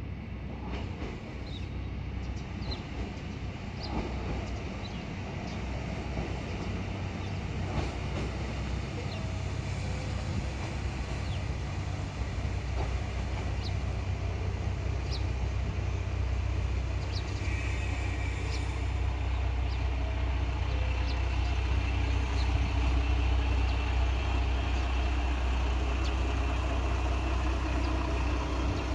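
Train running at a station platform: a low rumble that builds gradually over about fifteen seconds, with scattered faint ticks.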